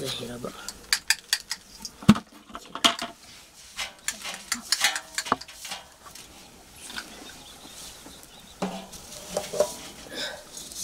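Irregular clinks and knocks of metal pots, with grain rattling as it is poured into a copper pot and worked through by hand.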